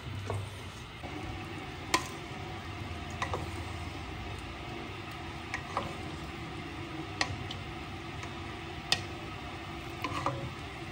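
Wooden spoon stirring spaghetti in a stainless steel pot of boiling water: a steady bubbling hiss with sharp clicks of the spoon against the pot every second or two.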